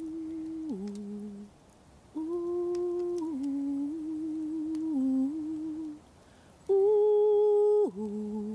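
A woman singing a wordless Sami wind yoik, meant to turn the singer into the wind: long held notes stepping up and down between a few pitches, broken by two short pauses, with the loudest and highest held note near the end.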